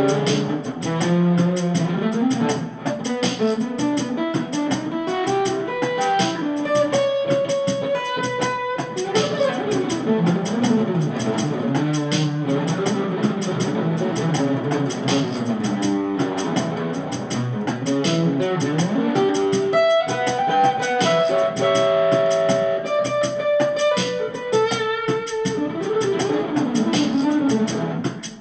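Instrumental background music, a melody moving up and down over a steady accompaniment.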